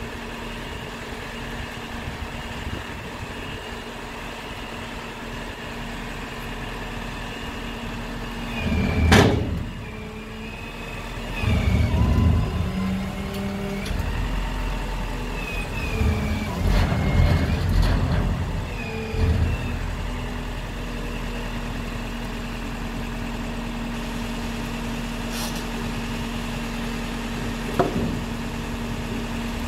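Diesel engine of an Isuzu FTR hook-lift truck running steadily with a constant hum while its Palfinger hook lift's hydraulics drag a steel roll-off dumpster off a flatbed trailer. There is a single loud bang about nine seconds in, then a stretch of louder irregular clanking with squeals as the steel container shifts and scrapes.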